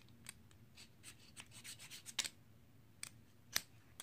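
Short, irregular scraping strokes on a flint rod as its black coating is scratched off, the strongest about two seconds in and again near three and a half.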